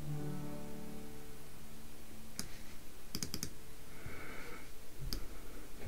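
Several sharp computer mouse clicks, a few in quick succession like double-clicks opening folders. Under them is faint room tone with a low steady hum that fades after about two seconds.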